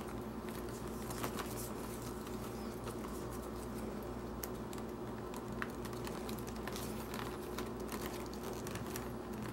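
Faint scratching and small clicks of leather saddle strings being worked and pulled through narrow holes in a leather saddle, over a steady low hum.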